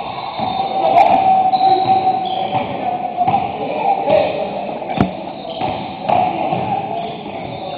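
Basketball game in a large, echoing gym: a ball bouncing on the hardwood court, with a sharp thud about five seconds in and short sneaker squeaks, over a din of players' voices.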